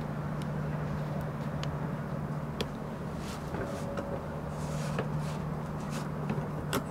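A steady low hum with a constant low tone, with a few faint clicks scattered through it and a slightly sharper click near the end.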